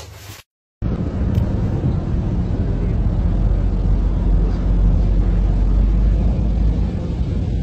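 A steady, loud low rumble that starts just under a second in, after a brief cut to silence.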